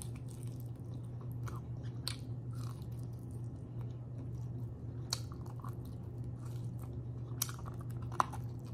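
Close-up chewing and biting of a grilled pork chop held by the bone: wet mouth sounds with scattered clicks and a few sharper bites, about two, five and seven seconds in and near the end. A steady low hum runs underneath.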